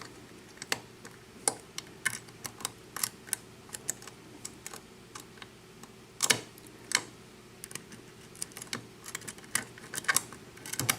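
Lock pick and tension wrench working the pins of a 5-pin tumbler lock with a Schlage keyway during single-pin picking: irregular small metallic clicks and ticks as the pick lifts and sets pins. Two louder clicks come about six and seven seconds in.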